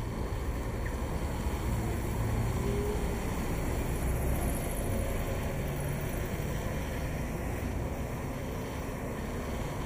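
Steady low rumble of city street traffic, with cars and double-decker buses running past.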